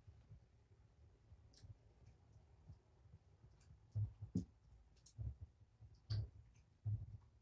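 Kitten eating from a bowl of cat food: irregular soft clicks and low knocks, louder and more frequent in the second half.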